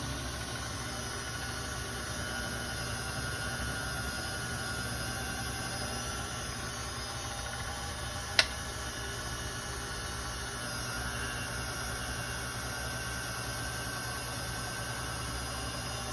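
A steady machine hum with a faint whine over it, broken by a single sharp click about eight seconds in.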